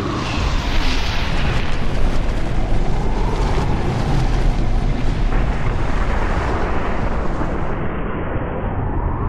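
Cinematic rumble sound effect laid under an animated logo reveal: a loud, steady, noisy rush with a heavy deep low end. Its hiss at the top thins out about eight seconds in.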